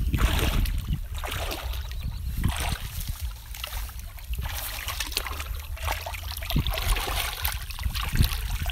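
Hands digging and scooping through wet mud in shallow water: irregular squelches, splashes and sloshing water.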